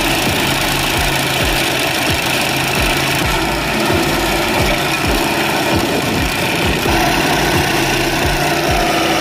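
Walk-behind stump grinder's gasoline engine running steadily while its cutter wheel grinds into a stump, with a run of short low thuds about twice a second over the drone.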